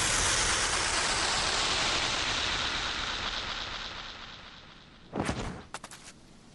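Fight sound effects: a rushing noise that fades away over about four seconds, then one sharp impact about five seconds in, followed by a few quick clicks.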